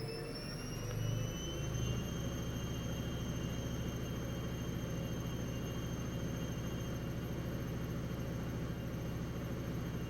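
Atlant 70U1214 washing machine spinning up. Its motor whine rises in pitch over the first two seconds, then holds steady at high spin speed.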